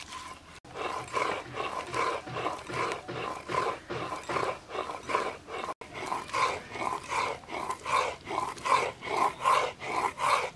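Stone muller rocked back and forth on a wet grinding stone (shil-nora), grinding onion into paste: a rhythmic grating scrape, about two to three strokes a second, with two brief breaks.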